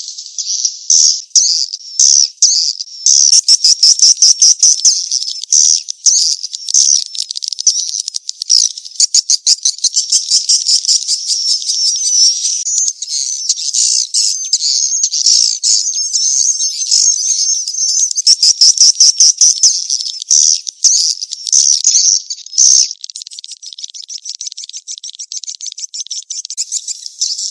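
Edible-nest swiftlet calls in a lure recording used to draw swiftlets into a swiftlet house: a dense, unbroken stream of rapid, high-pitched chirps and buzzy trills, a little softer near the end.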